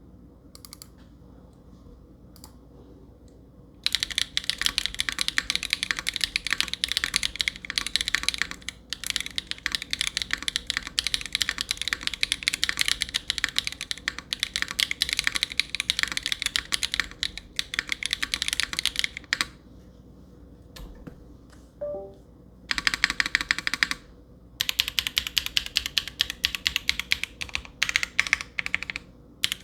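Typing on a Monokei x Hand Engineering Kage mechanical keyboard with stock Owlab Neon linear switches, an aluminum plate and GMK Striker keycaps. A few single keystrokes come first; fast continuous typing starts about four seconds in, stops for a few seconds past the middle, then starts again and runs on.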